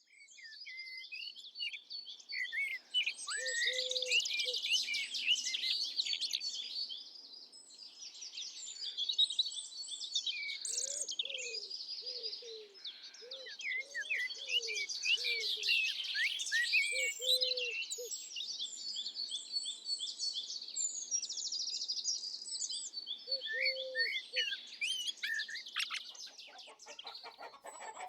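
Many songbirds chirping and singing together in a dense, overlapping chorus of high trills and whistles, fading in at the start. A lower call is heard several times, each time repeated in a short series.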